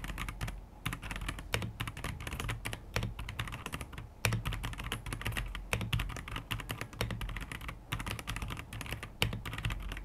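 Continuous fast typing on an Akko PC75B mechanical keyboard with linear Akko CS Jelly switches, a sound-dampening foam layer and a silicone switch pad inside: a dense run of key clacks, several a second.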